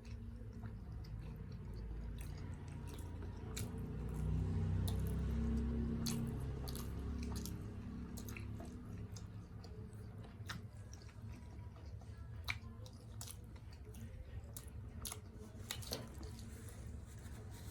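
Close-miked chewing of steamed chicken momo dumplings: wet mouth clicks and smacks come irregularly, over a low hum that swells a few seconds in and then eases.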